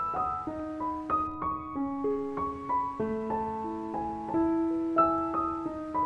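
Background piano music: a slow melody of struck notes, a few a second, each ringing on over held lower notes.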